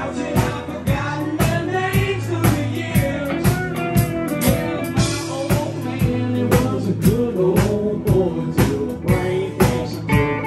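Live band playing a rock-blues song: a man singing over acoustic and electric guitars and a drum kit keeping a steady beat.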